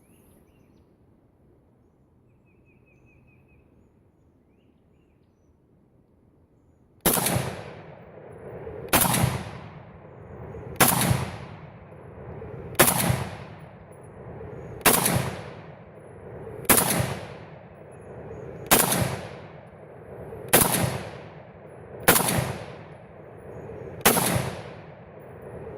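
Ruger Mini-14 semi-automatic rifle firing .223 Remington 50-grain Z-Max handloads: ten shots about two seconds apart, starting a few seconds in, each trailing off over about a second.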